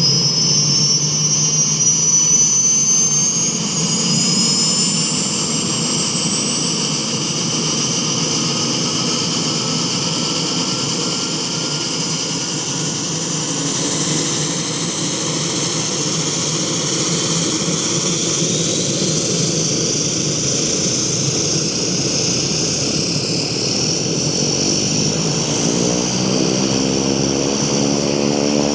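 Rolls-Royce turbine engine of a Cessna 210 Silver Eagle turboprop spooling up: a high whine rises steadily in pitch for about twenty seconds, then levels off. Near the end a pulsing propeller beat comes in under the whine.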